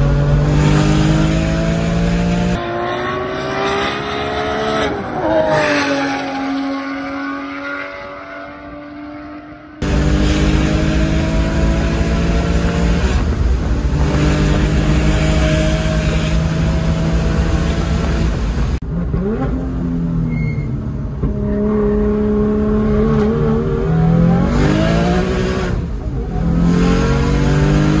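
Single-turbo BMW S55 straight-six in an M4 running hard on track, heard from inside the cabin. Long stretches at a steady high pitch are broken twice by the engine easing off with its pitch falling, then climbing again in short steps through the gears.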